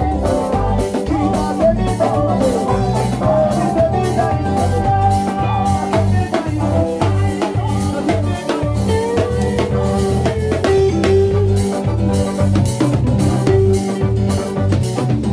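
Live band playing: a drum kit keeps a steady beat under an electric bass line and a melody higher up.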